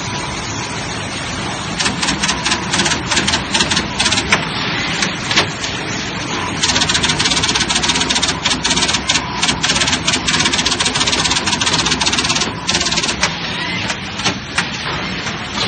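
PCB auto insertion machine running over a steady hum, clicking rapidly as it works. The clicking starts about two seconds in, runs dense and continuous for about six seconds in the middle, then turns intermittent.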